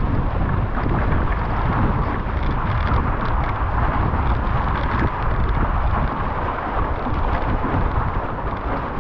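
Strong wind buffeting the microphone, with water rushing past the hulls of a Hobie 16 catamaran under sail. The noise is steady and unbroken.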